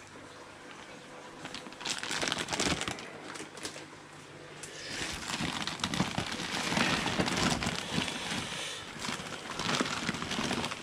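Plastic fish-shipping bags crinkling and rustling as they are handled, in two stretches of irregular crackly rustling.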